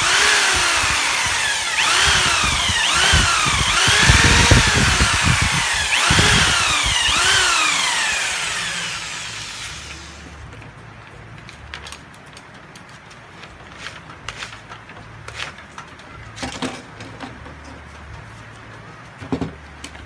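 Corded electric hand drill spinning a wooden dowel rod while sandpaper is held against it: the motor whine rises and falls again and again as the trigger is squeezed and eased, over a scratchy hiss. The drill stops about halfway through, leaving a few light knocks and handling sounds.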